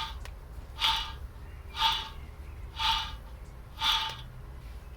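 Worn, dry rear wheel bearing on a front-wheel-drive Alfa Romeo Mito, turned so that it gives a short rasping scrape about once a second, five times, a slight ticking. It is the sign of a bearing that has run dry and rusted, with the balls rubbing on metal.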